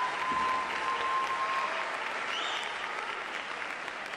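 Audience applauding in an auditorium after a children's choir number, the clapping easing off slightly toward the end.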